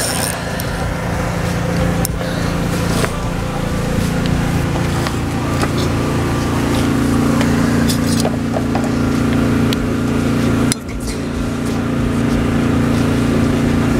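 Boat motor running steadily; its pitch rises a little about five seconds in, and it drops out briefly near the end.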